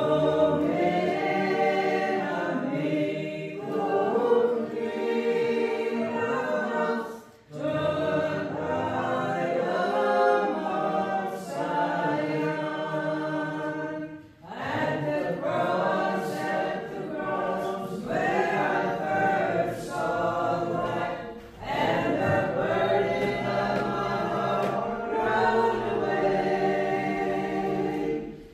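Church congregation singing a hymn together, in long phrases of about seven seconds each, with brief breath pauses between the lines.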